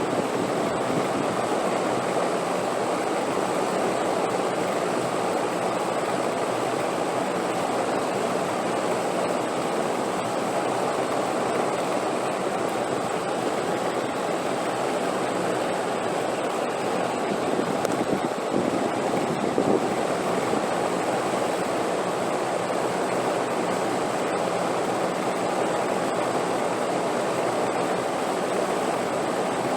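Wind blowing as a steady, even rushing noise with hardly any change in strength.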